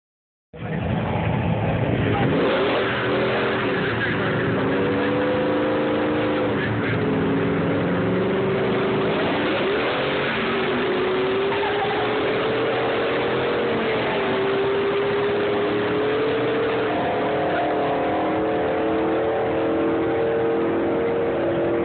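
Engines of two drag-race pickups, among them a 1995 regular-cab short-bed truck's turbocharged 408 cubic-inch V8 with an 88 mm turbo, running loudly at a held, slightly wavering rpm. The pitch dips briefly and recovers twice, about seven and ten seconds in.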